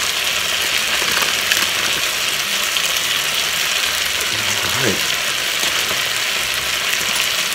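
Ravioli and sautéed vegetables pan-frying in a skillet, with a steady sizzle.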